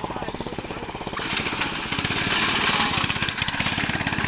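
A small engine running steadily with rapid, even firing, joined about a second in by a rushing, hissing noise.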